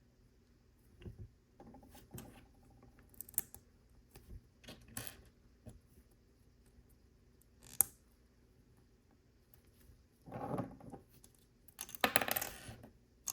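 Plastic LEGO pieces clicking and clinking as they are handled and pressed together, with scattered sharp ticks and two longer clattering rattles near the end.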